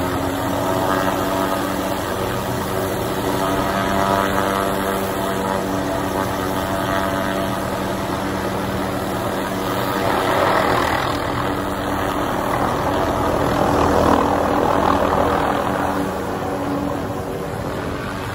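Helicopter running on its pad with the rotor turning: a steady engine hum with a rushing rotor noise over it. The rotor noise grows louder about ten seconds in and again around fourteen seconds, then eases near the end.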